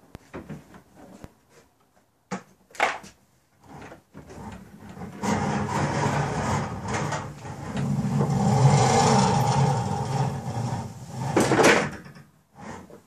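Homemade rope hoist on a barn door track being worked: a few knocks and clicks of handling, then several seconds of steady running noise as the barn door trolley pulleys roll along the steel track and the rope feeds through under the lawnmower's weight, with a sharp knock near the end.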